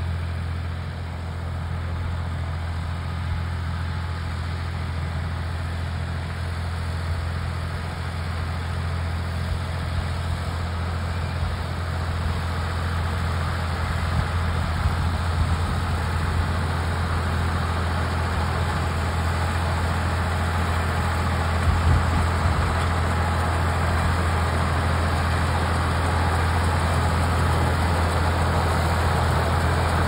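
Ford farm tractor running steadily while pulling a John Deere 410 round baler through hay, its engine drone growing gradually louder as it comes closer.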